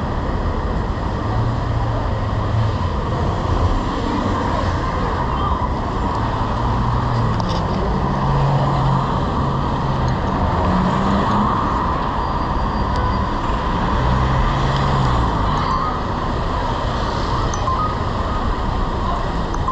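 Street traffic: a steady noise of road vehicles, with the low hum of engines rising and falling as vehicles pass or pull away.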